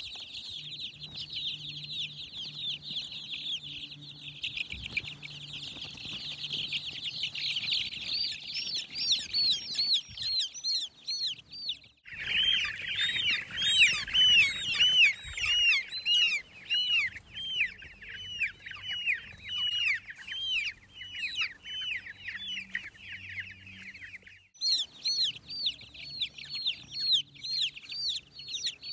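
A flock of young chicks peeping nonstop: many rapid, high, overlapping chirps. The chorus shifts abruptly twice, about twelve and twenty-five seconds in.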